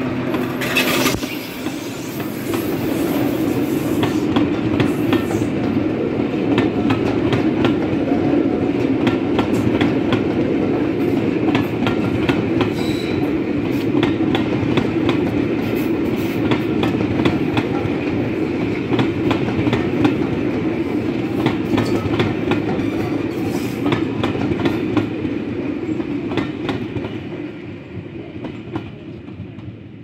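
Electric locomotive and its train of passenger coaches rolling past, the wheels clicking rhythmically over rail joints over a steady rumble. The sound fades over the last few seconds as the train moves away.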